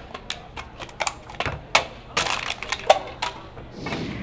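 Clear plastic cups being tapped and slapped on a tabletop in a cup game, a quick irregular string of sharp clacks. Near the end, a brief rushing noise.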